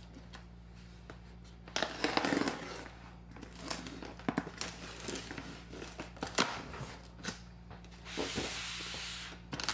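Packing tape being picked at, torn and slit on a cardboard shipping box, with scrapes and taps of hands on the cardboard. A short tearing burst comes about two seconds in, and a longer steady tear near the end.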